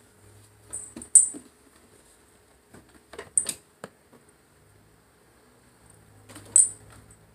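Sharp taps and scuffs as a hand pats the stair and a cat swats at it through the balusters: three louder hits, about a second in, near the middle and near the end, with lighter ticks between.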